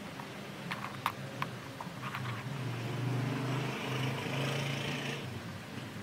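Rubik's cube layers turning, with a few sharp plastic clicks in the first two seconds. From about halfway in, a steady low motor hum takes over for nearly three seconds and then stops.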